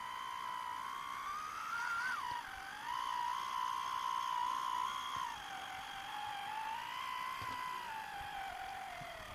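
Electric drive motor and gearbox of a radio-controlled model trial truck whining as it crawls over logs, the pitch rising and falling with the throttle. The whine jumps up and drops briefly about two seconds in, and sinks lower near the end.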